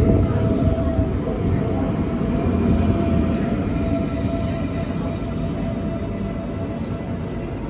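S-Bahn München electric multiple unit (DB Class 423) rolling past along a platform: a heavy low rumble of wheels on rails under a steady electric motor whine, easing off slightly as it goes.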